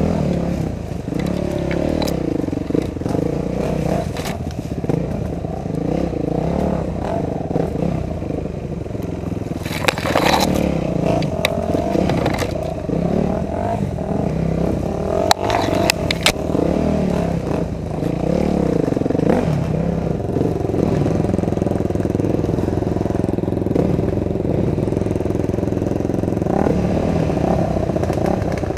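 Dirt bike engine running with revs rising and falling as it works along a trail, with a few sharp knocks and clatter around ten and fifteen seconds in.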